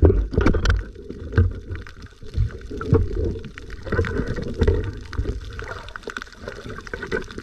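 Underwater sound of water moving and bubbling around the camera, muffled, with irregular dull knocks and a few short clicks.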